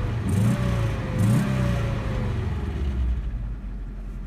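1992 Subaru Loyale's 1.8-litre flat-four engine revved twice in quick blips, then settling back to a steady idle about three seconds in. The owner says it runs well apart from a few exhaust leaks.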